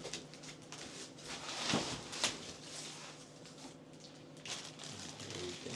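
Cardboard box and packing material rustling and knocking as a PC case is lifted out of it, with a few sharper handling knocks about two seconds in.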